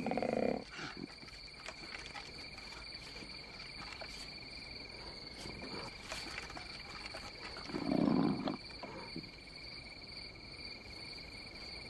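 A koala giving a short, low, grunting bellow about eight seconds in, with a briefer one right at the start. Under it, insects chirr steadily at two high pitches.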